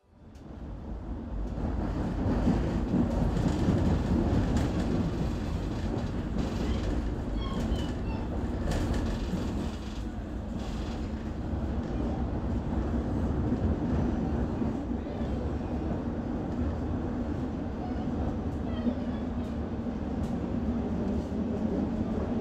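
London Underground train running: a steady low rumble and rattle with a few scattered clicks, fading in over the first couple of seconds.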